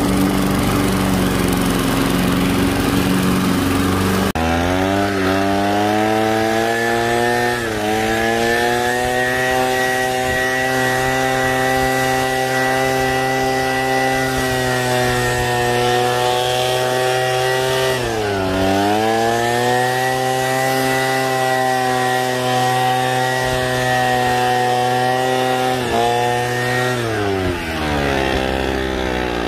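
Toro walk-behind mower engine running for the first few seconds. Then a small high-revving petrol engine tool takes over, a steady high engine note that dips in pitch twice as the throttle is eased and falls away near the end.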